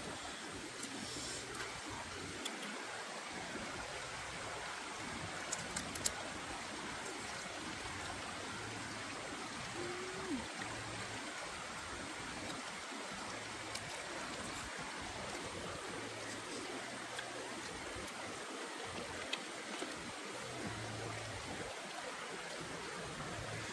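Steady rush of a stream flowing, with a few faint clicks.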